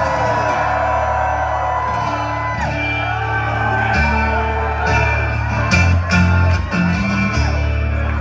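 Live audience cheering, whooping and shouting, with the band holding low sustained instrument notes that change a couple of times.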